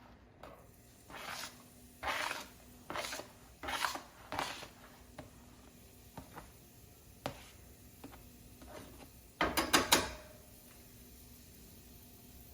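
Kitchen utensils and containers being handled while garlic is added to the pan. About five short scrapes come in the first few seconds, then a few light clicks, then a quick cluster of four louder scrapes near the end.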